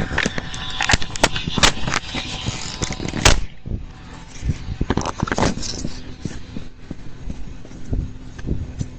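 Knocks, clunks and scraping picked up by a Ring doorbell camera's own microphone as it is pulled off its mount. The knocks come thick for the first three seconds or so, with the loudest about three seconds in, then thin out, with another cluster about five seconds in.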